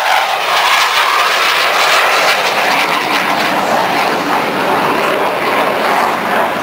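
Military aircraft flying overhead, its engine noise a loud, steady rush.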